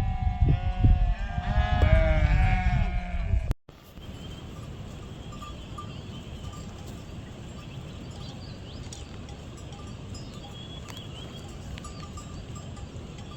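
Several livestock bleating loudly in wavering, rising and falling calls for about the first three and a half seconds. It then cuts off suddenly to a steady low outdoor rumble with faint, scattered bell tinkles.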